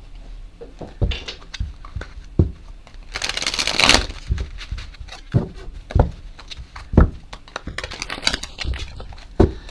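A deck of tarot cards being shuffled and handled: several sharp knocks, a rapid flutter of cards about three to four seconds in, and lighter card clicks near the end.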